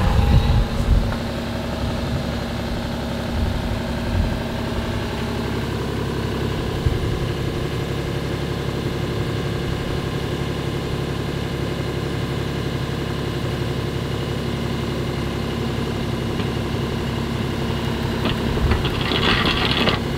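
Engine running steadily. Near the end a rattling, scraping grind joins as the auger-tipped boring rod in the trench starts to turn.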